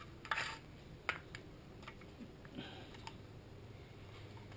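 Faint handling noises from gloved hands working at the rim of a removed metal engine oil pan: a short scrape about a third of a second in, then a sharp click about a second in and a few lighter clicks.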